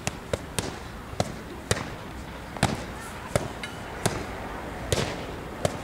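Boxing gloves smacking into focus mitts: about nine sharp punches at an uneven pace, some in quick pairs.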